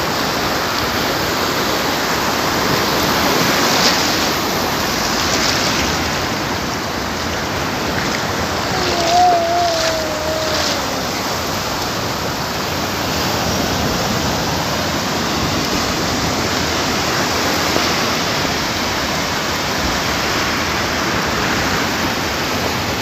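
Small sea waves breaking and washing up a sandy beach, a steady rush of surf with a few louder swells as waves come in. About nine seconds in comes a short, wavering high-pitched call.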